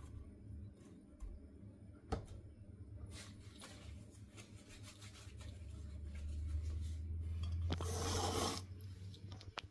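Quiet kitchen handling while watermelon is cut: faint rubbing and a few soft knocks. Near the end comes a low rumble with a rustle, the loudest part, as the camera is picked up and moved.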